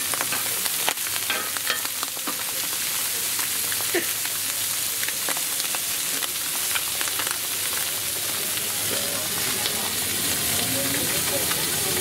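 Chicken thighs with rosemary and garlic sizzling on a hot flat-top griddle: a steady hiss with scattered crackles of spitting fat.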